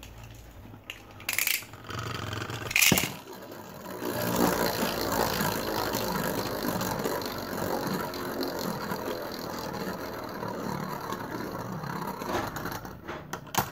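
Two Beyblade Burst spinning tops, Voltreak V2 and Sprizen S2, spinning and clashing on a plastic stadium floor. Two sharp clacks come in the first three seconds. From about four seconds in there is a steady rattling whir of the tops scraping and knocking together, which fades near the end as they slow.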